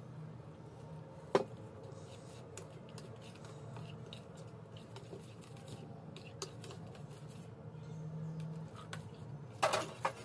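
Stainless-steel cooking pots being handled: a metal spoon scraping and tapping in a steel pot, with one sharp metal knock about a second and a half in, then a clatter of steel pots and lids near the end, over a low steady hum.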